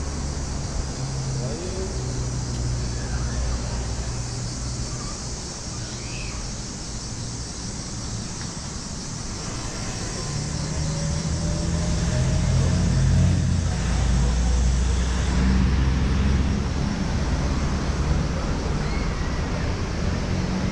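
Street traffic: a motor vehicle's low engine hum close by, growing louder about halfway through, over steady city street noise.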